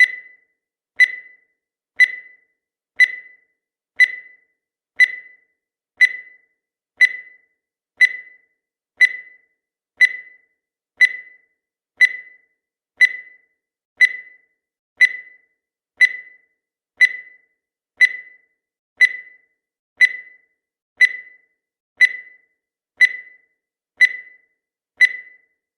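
Countdown timer's beep sound effect: a short high electronic beep once every second, each dying away quickly, in a perfectly even rhythm.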